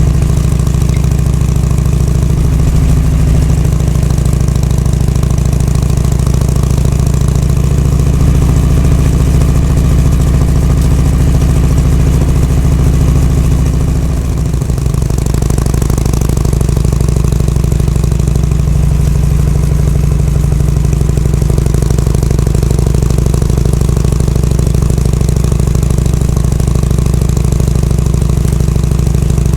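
Harley-Davidson Shovelhead FLH V-twin engine running steadily, freshly repaired of an abnormal noise and being run in. About halfway through it briefly drops off and its pitch shifts, then it carries on.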